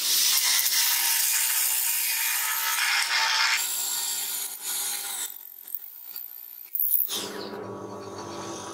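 A cordless drill with a wide bit boring through plywood: a loud, rough cutting noise with the drill motor's whine for about five seconds, then quieter. A sharp click and a brief falling sweep come near the end.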